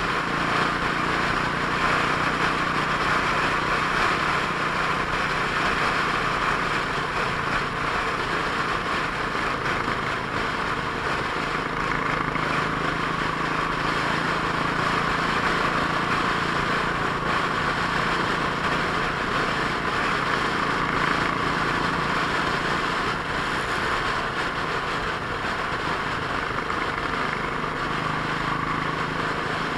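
Steady wind rush and road noise on a motorcycle-mounted camera at highway cruising speed, over the even hum of the motorcycle's engine holding a constant speed.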